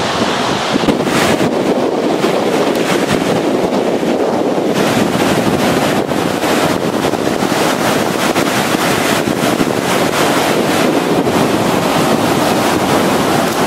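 Pacific surf breaking on a beach, heard through heavy wind buffeting on the microphone: a continuous rush of surf with irregular gusts.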